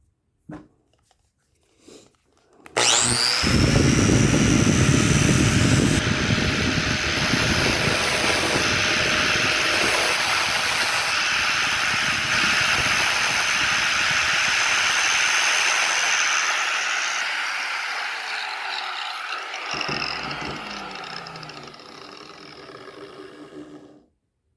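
A handheld grinder clicks on, whines up to speed and runs for about fourteen seconds, grinding off screw tips that poke through a thin skateboard deck. Then it winds down with a falling whine and stops.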